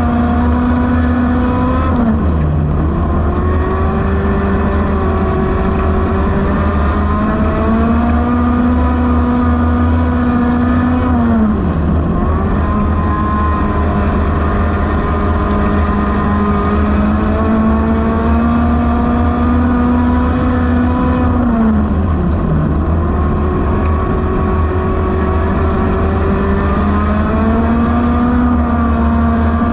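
Dirt-track race car engine heard from inside the cockpit, held at steady high revs and briefly dropping in pitch then climbing back four times, as the throttle is lifted for each turn and reapplied.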